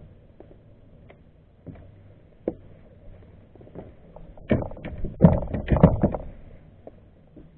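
A quick run of knocks and rattles on the plastic kayak, bunched into about two seconds past the middle, as a rockfish is reeled up alongside, over a low steady rumble.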